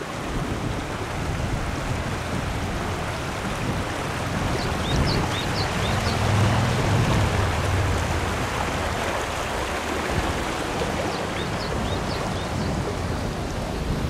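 Shallow stream babbling over rocks in a steady rush of water, with wind buffeting the microphone in uneven low rumbles.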